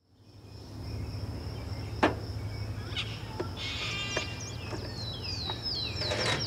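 Park ambience fading in: a steady high insect buzz and a low steady hum, with birds chirping and a run of quick falling whistles near the end. Scattered sharp knocks, the loudest about two seconds in, as of children's hands and feet on playground bars.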